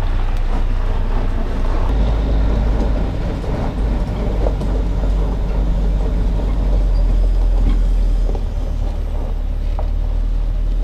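Heavy truck engine running with a steady low rumble.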